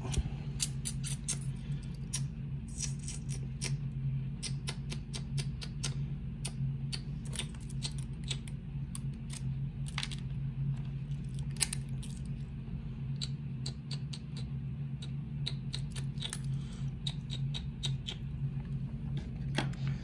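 Small metal clicks and light rattles of a challenge lock's body and parts being handled and taken apart by hand, scattered irregularly throughout, over a steady low hum.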